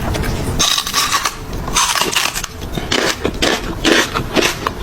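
Loud, irregular crunching and rustling noises close to the microphone, coming in uneven bursts with a low rumble underneath.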